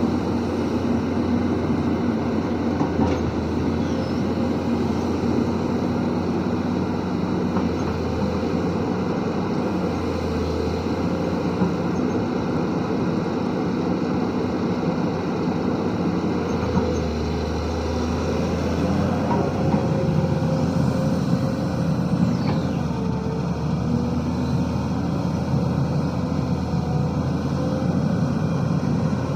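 Diesel engine of a SANY SY215C hydraulic excavator running continuously, its note shifting slightly up and down a few times as the load changes.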